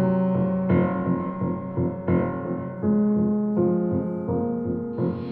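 Background music of slow piano chords. A new chord is struck about every three-quarters of a second and left to ring.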